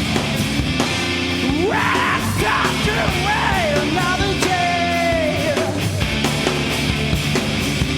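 Live rock band playing hard, punk-styled rock with drums and amplified instruments. A singer comes in with yelled, sung vocals about two seconds in and holds them until about six seconds in.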